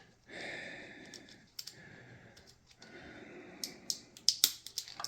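Rustling as a plastic wiring harness and its cable ties are handled, then a quick run of sharp clicks over the last second and a half.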